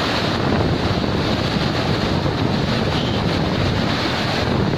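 Typhoon wind and driving rain, a steady dense rush with gusts buffeting the microphone.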